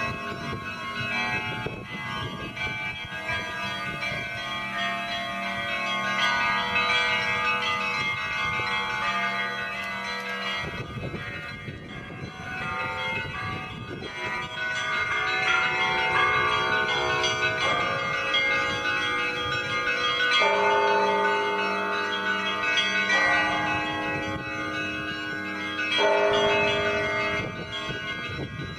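Russian Orthodox monastery bells ringing a continuous peal, with several bells of different pitches sounding together. Fresh strikes of deeper bells come in every few seconds in the second half.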